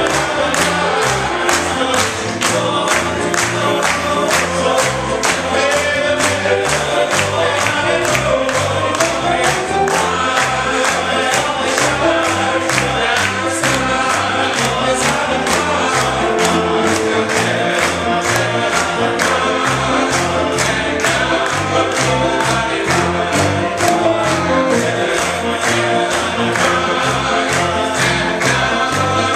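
Male gospel vocal ensemble singing an upbeat gospel song in close harmony, with steady hand clapping on the beat.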